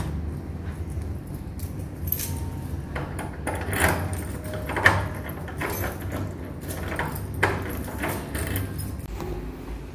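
Keys jangling with a series of sharp clicks and knocks from a door being handled, over a steady low hum.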